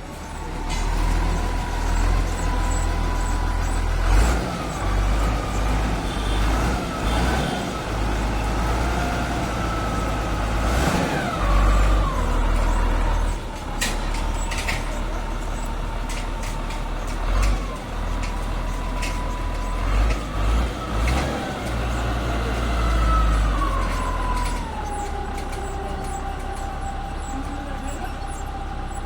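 A heavy truck's engine running, with a steady whine that shifts up and down in pitch and drops lower near the end, over a deep rumble that surges and eases.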